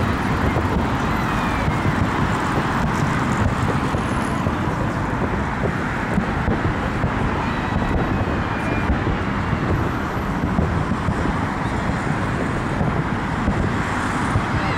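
Aerial fireworks bursting without a break, a dense running rattle of bangs and crackles with a few faint whistling glides.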